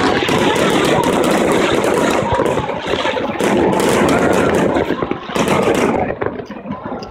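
Fireworks display: a dense barrage of aerial shells giving rapid crackling and popping that thins out and drops in level about five seconds in.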